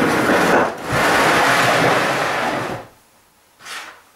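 Metal lathe parts, a cast belt pulley and the old DC motor, slid and dragged across a workbench top: a continuous scraping rub for about three seconds with a short break near the first second, then one brief scrape near the end.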